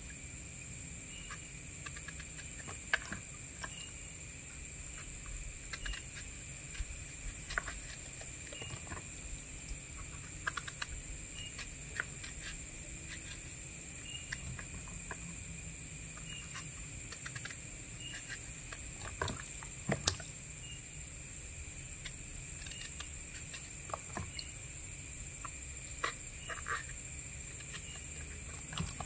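Knife cutting peeled eggplant over a basin of water: scattered short clicks, knocks and drips, over a steady high-pitched drone of insects such as crickets.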